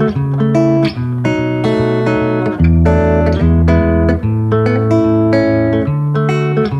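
Background instrumental music: plucked guitar notes over a bass line.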